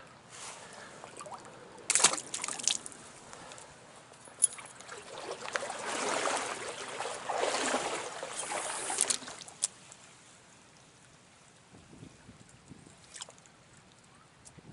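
Stream water splashing and sloshing close by: a few sharp splashes about two seconds in, a longer stretch of sloshing from about five to nine seconds that stops suddenly, then the quieter trickle of the stream.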